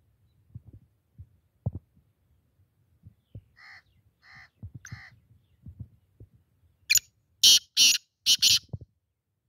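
Caged black francolin calling: three short, soft notes about halfway through, then a loud, harsh, grating series of four notes near the end.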